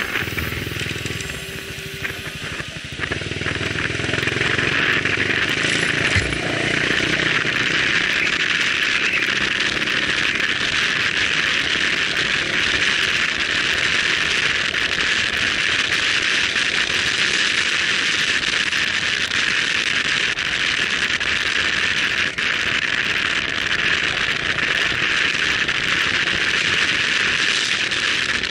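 Motorcycle riding along a road: the engine running under a steady rush of wind and road noise, with a deeper rumble in the first few seconds.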